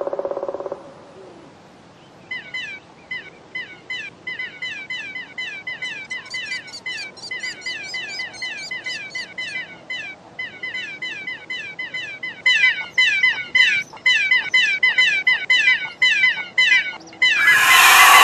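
Nestling chicks chirping over and over to beg for food, short falling chirps about four a second, louder in the last third. A steady low tone ends just under a second in, and a loud rushing burst comes near the end.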